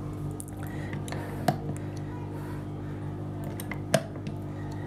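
AA batteries pushed into the spring-contact slots of a plastic wall-plug charger, giving two sharp clicks, one about a second and a half in and one near the end, with a few fainter ticks. A steady low hum runs underneath.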